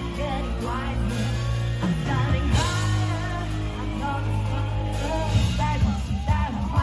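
Music with a singing voice over held deep bass notes.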